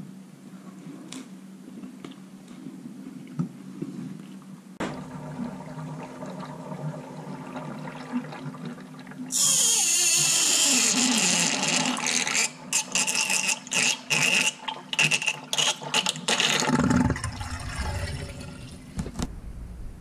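Water from a tap pouring into a stainless-steel sink over salted rounders. It comes on suddenly about halfway through and runs steadily, then breaks up into short splashes as the stream is interrupted, and stops shortly before the end.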